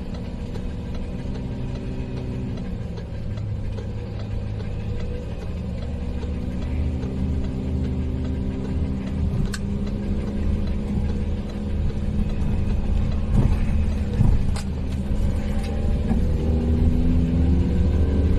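Camper van engine heard from inside the cab, running under a low road rumble. Its pitch climbs steadily as it accelerates, eases off briefly, then climbs again. A few sharp knocks come in the second half.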